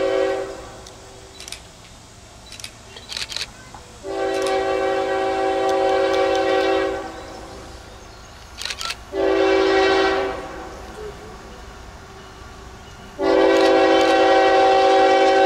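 Norfolk Southern diesel locomotive's air horn sounding a series of blasts as the train approaches. The end of one blast comes first, then a long blast about four seconds in, a short one near ten seconds and another long one from about thirteen seconds. This long, long, short, long pattern is the signal for a grade crossing.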